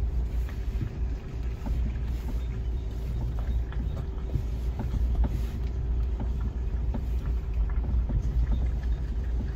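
Car driving, heard from inside the cabin: a steady low rumble of engine and road, with a faint steady hum and light ticks and knocks scattered throughout.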